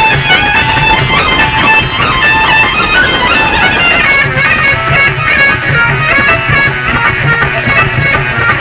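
Instrumental passage of bhajan music: a sustained melody instrument plays a tune over a steady low pulse, with no singing.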